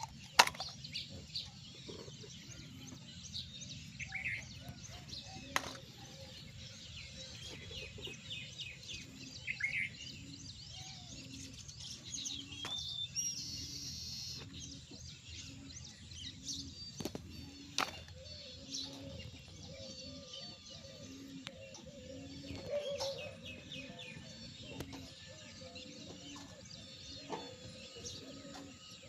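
Faint bird chirps and calls, many short, with a soft low pulse repeating about once a second and a few sharp clicks.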